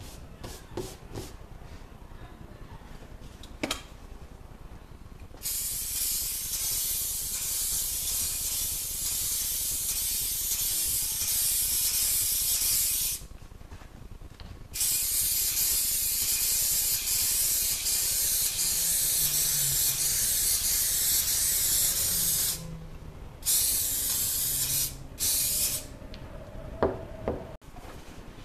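Aerosol can of spray adhesive hissing in long bursts: two of about eight seconds each, then two short ones, coating the boards so the fabric can be stuck down. A few light knocks come before and after.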